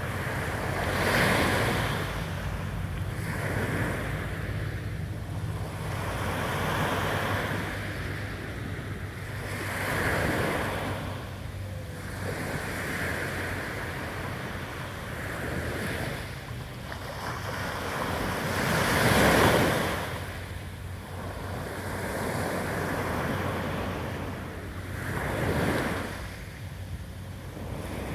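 Small sea waves breaking and washing up a sandy beach, each surge swelling and fading every few seconds, the loudest about two-thirds of the way through.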